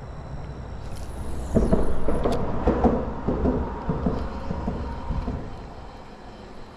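A vehicle passing on the road: a low rumble with rattling that builds to its loudest about two seconds in, then fades away by about five seconds in.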